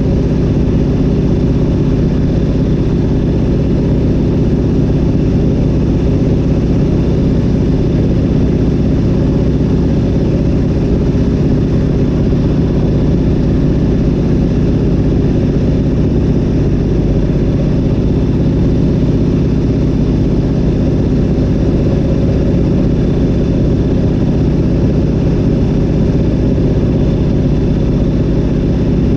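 Zlin Z-37A-2's nine-cylinder M-462RF radial engine and Avia V-520 propeller running at a steady cruise setting in flight, heard from inside the cockpit.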